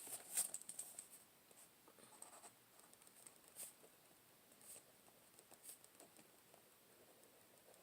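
Faint scratching of a pen on paper: someone writing in a journal, in short irregular strokes, a little louder in the first second.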